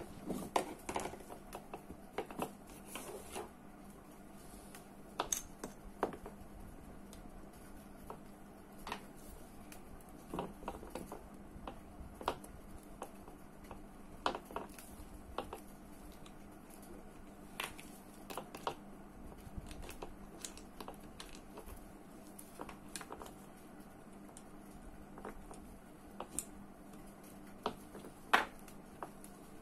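Scattered small clicks and taps of metal reel parts and small tools being handled during reassembly of a spinning reel's body, irregularly spaced, with a louder pair of clicks near the end, over a faint steady hum.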